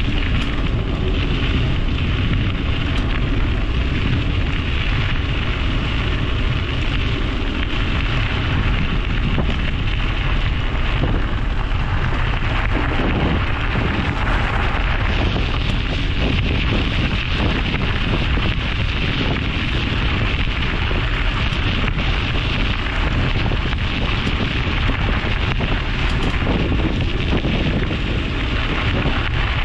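Bicycle tyres rolling steadily over a forest road, with wind rumbling on the action camera's microphone from the riding speed.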